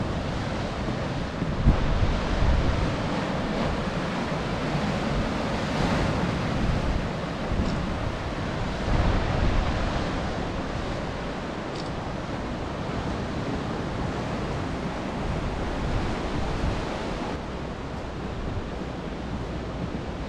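Sea surf washing steadily, with gusts of wind buffeting the microphone a couple of seconds in and again around the middle.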